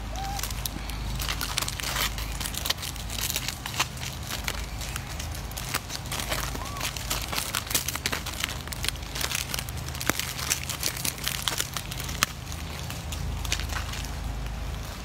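Plastic snack wrappers crinkling and crackling irregularly as monkeys grab and handle the packets, with two brief faint squeaks.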